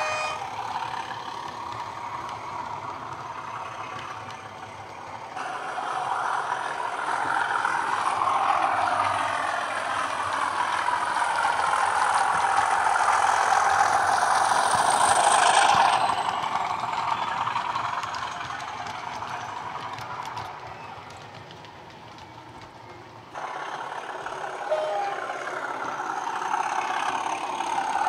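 Class 37 diesel locomotive sound from a Coastal DCC sound decoder, played through a 27mm round bass speaker inside a Bachmann Class 37/0 model: the English Electric V12 engine running, its pitch rising and falling as the model speeds up and slows down. A high whine rises and then cuts off about halfway through, and the sound changes abruptly several times.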